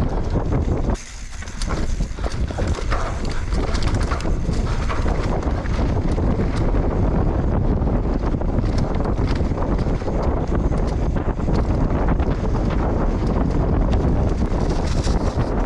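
Mountain bike riding fast over rough ground: wind rushing over the microphone, with the bike and tyres rattling and clattering. The rushing briefly dies down about a second in, then picks up again.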